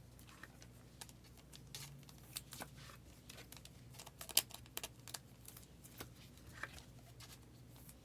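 Faint clicks and rustles of trading cards being handled and flipped through, with scattered sharp ticks, the loudest about four and a half seconds in.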